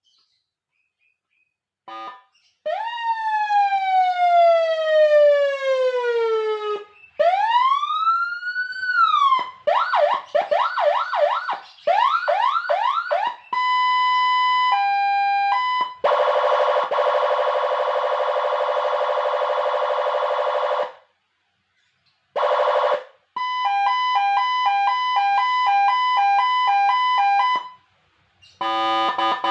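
Electronic siren amplifier (a 200-watt siren kit) sounding through its tone modes one after another, starting about two seconds in. First comes a long falling wail, then a rise and fall, a fast repeating yelp, a two-tone hi-lo, a steady buzzing tone, and a rapid two-tone warble, with short gaps between them.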